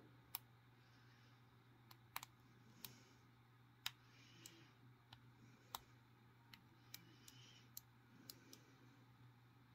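About fifteen faint, sharp clicks at uneven intervals from a lock pick working the wafers of a Union 3270 wafer padlock held under tension, the little clicks of wafers being set one by one from the back of the lock forwards.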